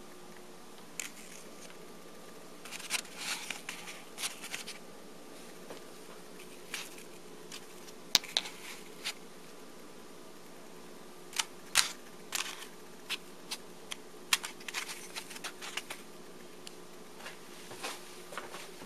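Handling noise: scattered light clicks and rustles, with a few sharper clicks, over a steady faint hum.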